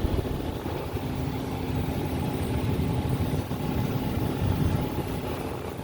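Air conditioner running: a steady low rumbling drone with a constant hum that joins about a second in, over a fainter hiss.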